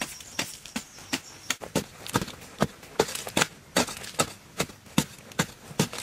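A hand digging tool striking hard, dry soil over and over, about two to three blows a second, each a sharp chop. A faint insect trill fades out in the first second or two.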